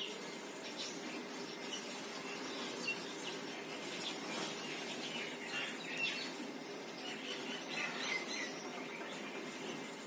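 Small birds chirping in short, scattered calls over a steady background hum.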